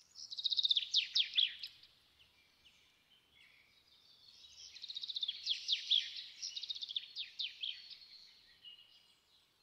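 A small songbird singing: two bouts of rapid, high chirps that fall in pitch, the second starting about four seconds in, with quieter twittering between them.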